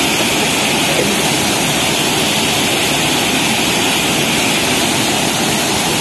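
Steady rush of a waterfall and its rapids, an even roar of falling water.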